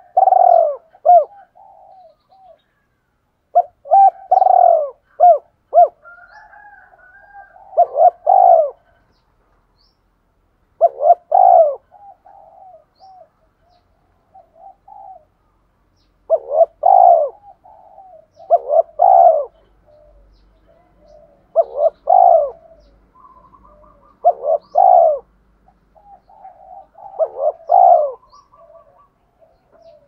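Spotted dove cooing: short phrases of a few quick coo notes, repeated every two to three seconds. This is the call of a decoy dove kept to draw in wild doves.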